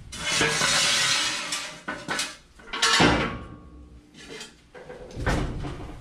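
Metal scraping and clanking as a floor jack and its long steel handle are handled on a concrete floor: a rattling scrape for the first two seconds, then a few sharp knocks, the loudest about three seconds in.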